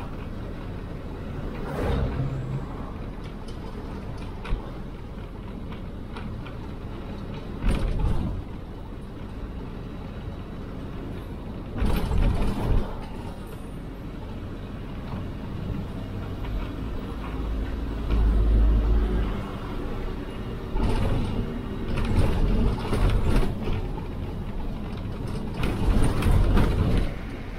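Cabin noise of a moving bus: a steady engine and road rumble with wind through open windows and the body and fittings rattling and creaking, broken by louder jolts a few times, more often near the end.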